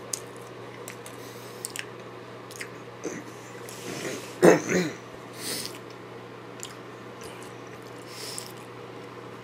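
A person chewing a mouthful of deep-fried Twinkie, with small wet mouth clicks scattered throughout. A brief hum of the voice comes about four and a half seconds in, and a few soft breaths follow.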